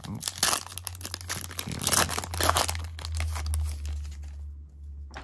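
A foil trading-card booster pack crinkling and crackling as it is torn open and handled, dense sharp crackles for about the first three seconds, fewer after that.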